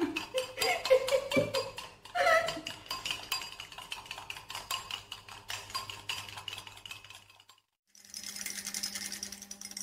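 Rapid clinking of a metal spoon and a fork beating dalgona coffee (instant coffee, sugar and water) by hand against a glass and a plate. The clicking stops briefly about seven and a half seconds in, then starts again.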